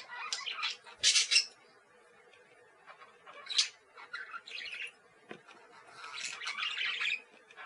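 Parakeets calling in short squawks and chirps, in irregular bursts: a cluster in the first second or so, a quiet gap, a few single calls, then a busier stretch of calling near the end.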